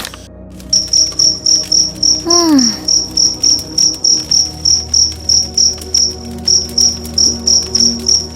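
Insect chirping like a cricket: a steady run of short high chirps, about three a second, with a brief pause near the end. A short falling tone sounds once about two and a half seconds in.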